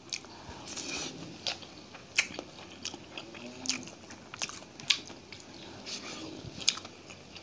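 Close-up eating sounds: a person mixing rice with tomato chutney by hand and chewing it, with scattered small clicks from mouth and fingers.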